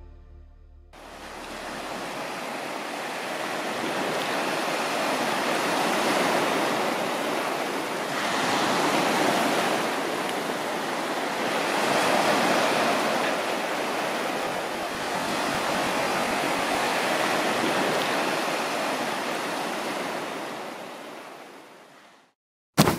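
Small waves breaking and washing up a sandy beach, the surf swelling and easing every few seconds. It fades out near the end.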